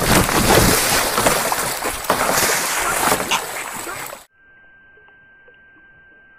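Goose attacking at close range: wings flapping and beating against the kayaker and the kayak, with water splashing, a loud, scuffling commotion. It cuts off suddenly a little after four seconds, leaving a faint steady high whine.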